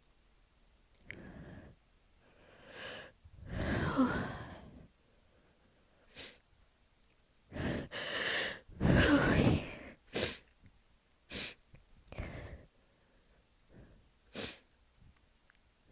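A person sneezing: breathy build-ups leading to two loud sneezes, about four seconds in and about nine seconds in, followed by a few short, sharp sniffs or breaths.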